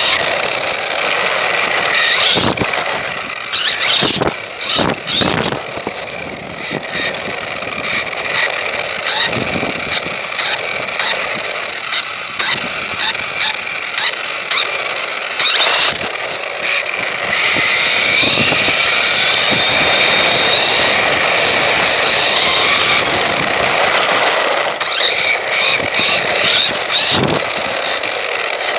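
A high-pitched vehicle motor whining and surging, with rapid short revs about every half second in the middle stretch. Several sudden knocks are heard along the way.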